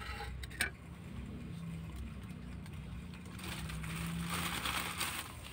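A faint vehicle engine running steadily with a low hum, with a hiss that swells through the second half. A single sharp click comes about half a second in.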